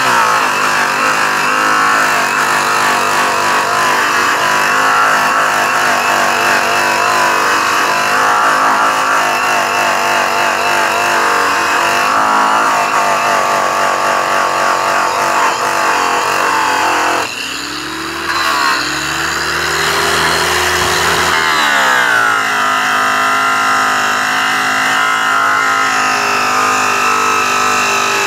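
Makita electric polisher spinning a yellow airway buff against an aluminum wheel, a steady high motor whine with the hiss of the buff on the metal, while buffing out black residue with rouge. About seventeen seconds in the sound briefly drops off, then comes back with its pitch wavering before it settles steady again.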